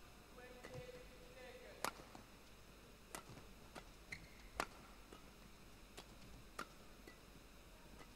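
Badminton rackets striking the shuttlecock in a singles rally: sharp hits about every second to second and a half, with short squeaks of court shoes between them.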